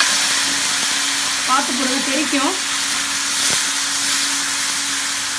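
Boiled vegetables and their cooking water going into hot coconut oil in a kadai, sizzling loudly and steadily as they are stirred in. There is a single sharp knock about three and a half seconds in.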